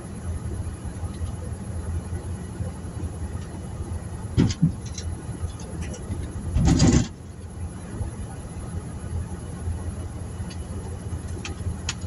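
Steady low rumble of a parked truck's idling engine heard inside its cab. Two short knocks come about four and a half seconds in, and a brief, louder thump a little past halfway.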